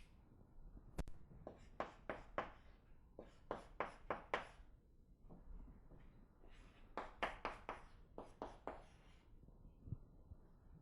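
Writing on a lecture board: clusters of short scratching strokes, several a second, in three bursts with short pauses between.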